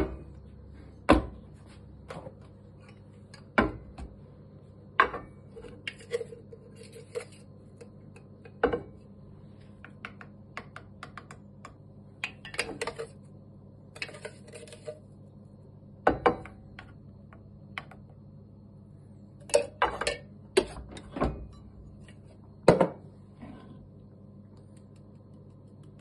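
Irregular clinks and knocks of metal kitchenware handled on a wooden chopping board: a stainless espresso portafilter set down and picked up, and a metal coffee tin's lid taken off as ground coffee is dosed into the basket. A faint steady low hum sits underneath.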